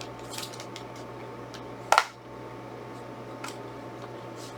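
Handling of a Blu-ray case in its tight cardboard slipcover: a few faint taps and rustles, then one sharp click about two seconds in, over a steady low hum.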